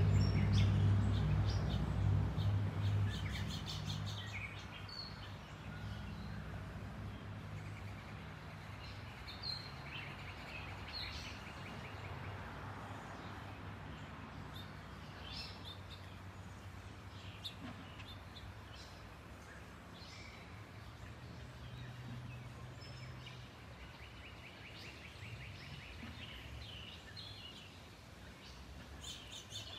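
Low, distant rumble of a Boeing 777 airliner's jet engines passing high overhead, loudest at the start and fading over the first five seconds or so, then lingering faintly. Birds chirp on and off throughout.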